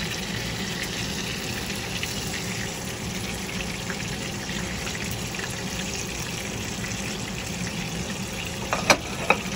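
Breaded chicken cutlets sizzling steadily as they shallow-fry in hot oil in a skillet. Two sharp clicks near the end.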